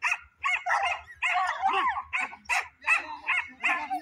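Hunting dogs yelping and barking in rapid, repeated high-pitched calls, several overlapping around the middle: excited dogs held on leads at the start of a race, waiting to be slipped after a lure.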